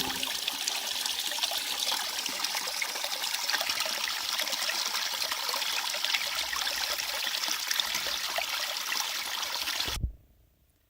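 Small forest brook trickling steadily over its bed; the sound cuts off suddenly about a second before the end.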